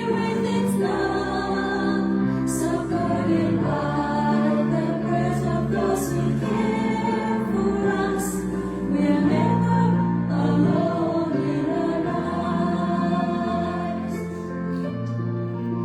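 A choir singing held notes over an instrumental accompaniment.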